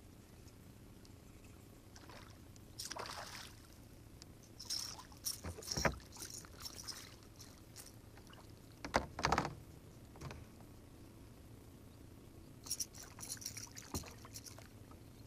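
A hooked largemouth bass splashing at the surface beside a plastic kayak while it is played and landed, with irregular splashes and water sloshing, a few hard knocks about nine seconds in, and a quick run of splashes near the end as the fish is brought alongside.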